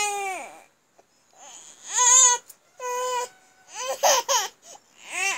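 A baby babbling: about five short, high-pitched vocal calls with pitch that rises and falls, separated by brief pauses. The loudest call comes about two seconds in.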